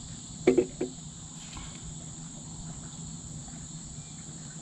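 Steady high chirring of crickets over a faint low hum, with two brief close sounds about half a second in.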